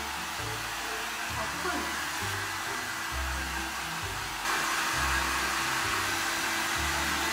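Handheld hair dryer blowing steadily, getting louder about four and a half seconds in.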